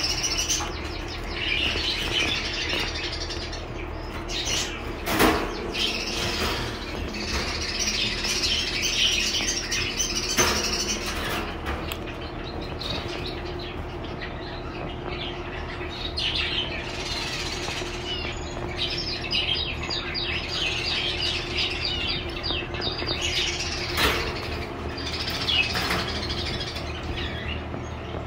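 Several small cage finches chirping continuously in overlapping high twitters, with a few sharp clicks scattered through.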